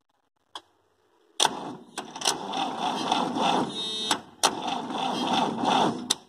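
Starter motor of a Massey Ferguson 85X tractor cranking its engine in two bouts, each begun or ended with a sharp click, without the engine starting. A battery too weak to start it is the cause.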